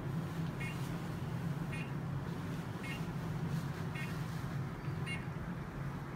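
Tumescent anaesthesia infusion pump running with a steady low hum while a short electronic beep repeats about once a second, five times.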